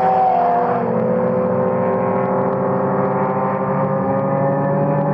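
BMW 325i E92's N52B25 inline-six, fitted with aftermarket headers and a custom stainless exhaust, pulling hard out of a drift. The revs drop about a second in, then climb slowly and steadily as the car accelerates away.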